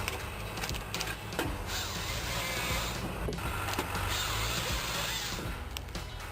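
Valmet 665 forestry machine with a Kesla crane at work: a steady engine hum under the whirring of hydraulics that swells and eases, with a few sharp clicks.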